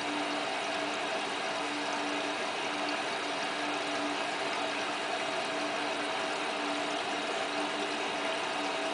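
Hotpoint Ultima WT960 washing machine running early in a wool cycle: a steady hiss with a faint, even hum, with no changes.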